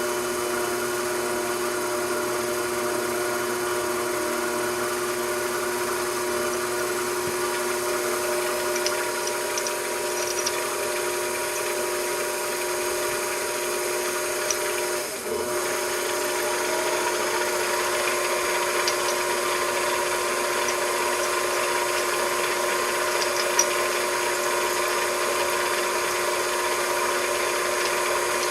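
A small machine tool's motor running steadily with a constant whine. It dips briefly about halfway through and then runs on with a slightly changed tone, with a few faint ticks.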